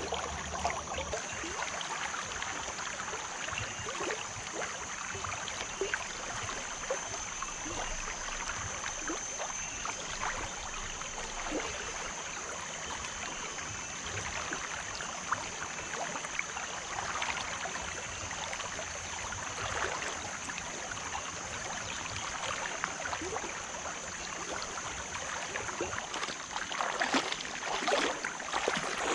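River current rushing and gurgling, with a thin, steady high-pitched hum behind it; the water grows a little louder near the end.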